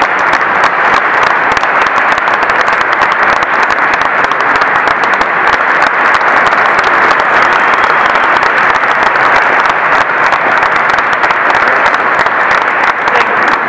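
Audience applauding steadily: many hands clapping in a dense, loud, unbroken wash.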